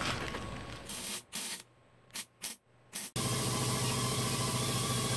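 Arc welding on a 3/16-inch steel patch in a truck frame: a few short hissing bursts, like tack welds, then from about three seconds in a steady hiss as a continuous bead is run.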